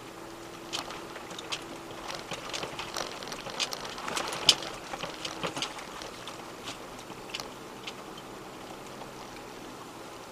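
Four-wheel-drive vehicle crawling slowly over a stony mountain track: irregular clicks and knocks from stones under the tyres, with a sharper knock about four and a half seconds in, over a faint steady engine hum.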